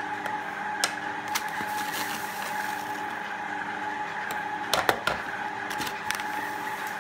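Stand mixer motor running steadily while it kneads a dough, with a few light clicks and knocks; the sharpest come about five seconds in.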